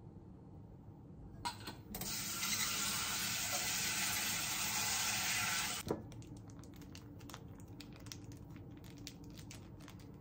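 A steady hiss of running water for about four seconds that cuts off sharply, followed by small crinkles and clicks as instant miso soup is tipped from its packet into a ceramic cup and stirred with a spoon.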